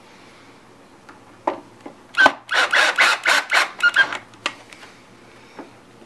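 Small parts being handled inside a turntable: a single click about a second and a half in, then a run of sharp, irregular clicks and rattles for about two seconds.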